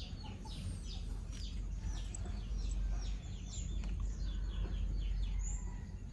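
Small birds chirping: many short, quickly falling chirps in overlapping runs, over a steady low rumble.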